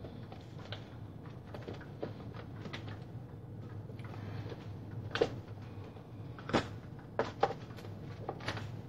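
Scattered light knocks and clicks from things being handled on a crafting table, a few sharper ones in the second half, over a steady low hum.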